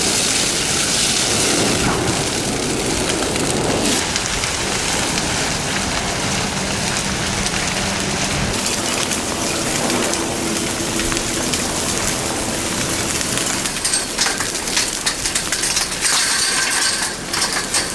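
Mount Etna erupting: a steady, loud rushing roar of lava jets with crackling, and sharper cracks and pops from about fourteen seconds in.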